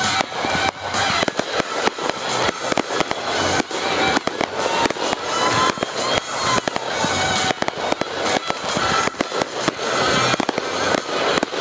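Aerial fireworks going off in a rapid, continuous barrage: dense overlapping bangs and crackles of bursting shells.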